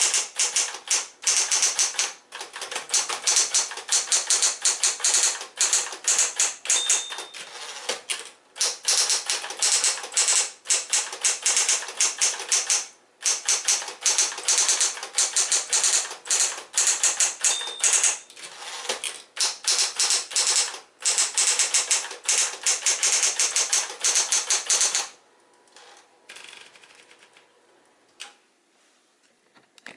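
Smith-Corona Electra 120 electric typewriter being typed on fast: a dense run of keystrokes with a few brief pauses, stopping about 25 seconds in.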